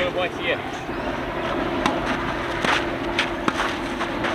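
Tennis ball struck by rackets and bouncing on a clay court during a rally: a string of sharp, separate knocks at irregular intervals.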